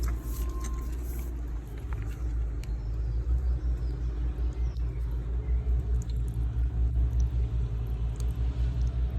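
A low rumble that rises and falls in strength, with a few faint clicks.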